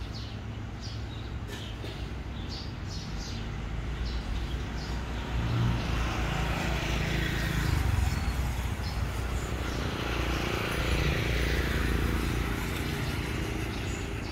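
Motor vehicle going past: a low engine rumble with tyre noise that builds, loudest about halfway through and again near the end.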